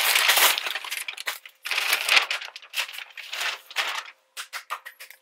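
A shopping bag and the clear plastic wrappers of squishy toys crinkling and rustling as the bag is tipped out. The rustle is dense at first, then thins to a few short crackles near the end.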